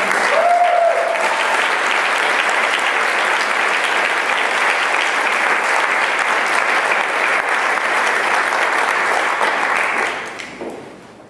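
Congregation applauding steadily, with a brief voice near the start; the clapping dies away near the end.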